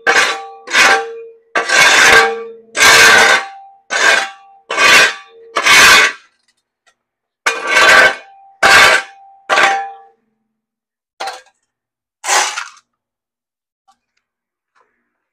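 Steel shovel blade scraping and scooping across bare concrete: about a dozen quick scrapes, several with a faint metallic ring, then two shorter ones about a second apart.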